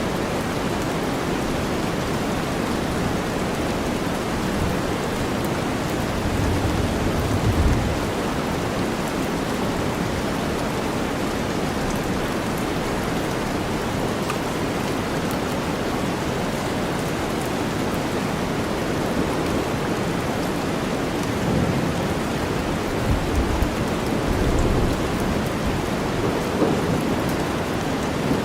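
Steady heavy rain blended with deep white noise, with low rolls of thunder swelling up twice: once about seven seconds in and again later, around twenty-two to twenty-five seconds.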